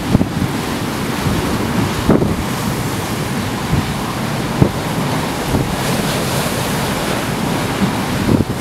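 Storm waves surging and breaking over a harbour pier, with strong gale wind blowing hard across the microphone. A few sudden low thumps stand out, about two seconds in and again near the middle.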